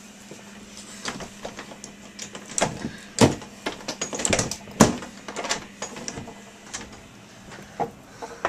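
A run of clicks and knocks with two loud thumps, about three and five seconds in, as someone moves through a doorway, over a faint steady hum.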